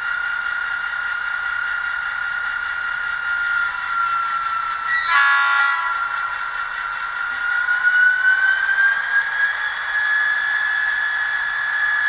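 ESU LokSound decoder's diesel locomotive sound, played through the speaker of an HO scale WAGR L class model. The engine sound runs steadily, a short horn blast comes about five seconds in, and from about seven seconds the engine pitch rises and holds higher as it revs up.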